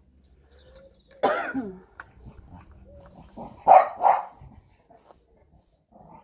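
Dog barking while playing: a falling yelp about a second in, then two loud, sharp barks in quick succession around the middle.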